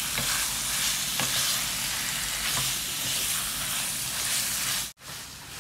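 Leftover aviyal sizzling steadily in hot coconut oil in a nonstick frying pan while a wooden spatula stirs and scrapes through it, dry-frying it into a varattu. About five seconds in the sound cuts out for an instant and returns fainter.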